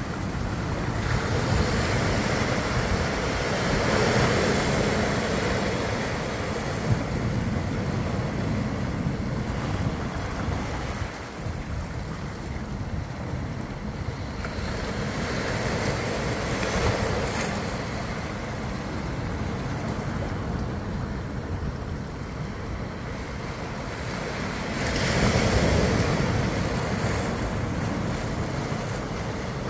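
Ocean surf washing onto the beach, with wind rumbling on the microphone; the surf swells up three times, loudest about 25 seconds in.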